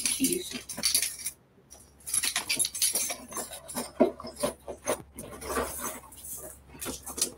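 Metal chain strap of a handbag clinking and rattling, with irregular clicks and rustles as small items are packed into the bag.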